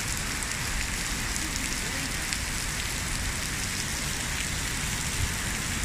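Heavy tropical downpour falling steadily: a dense, even hiss of rain with scattered ticks of nearby drops.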